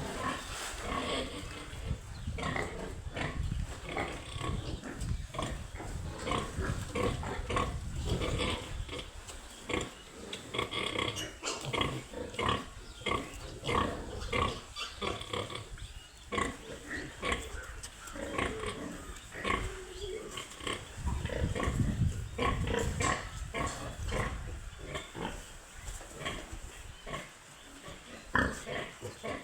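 Piglets grunting: a dense, irregular string of short calls, with a low rumble underneath at times.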